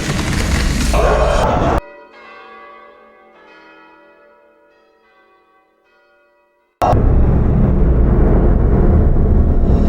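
A loud, dense horror sound effect with a heavy low end cuts off abruptly about two seconds in. A bell rings out in its place and slowly fades. Near the end another loud, dense horror track starts suddenly.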